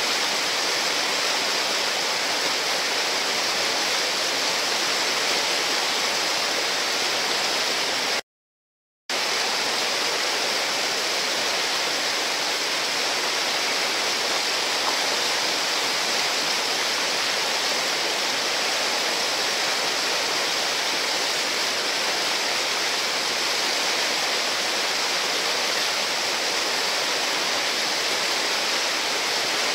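Whitewater rapids running in a steady, even rush as the river pours over a rocky ledge into a hole, the river swollen by a dam release. The sound cuts out completely for under a second about eight seconds in.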